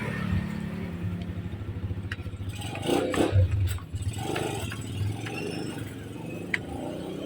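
A small engine running steadily with a fast low pulse, with a few sharp clinks over it.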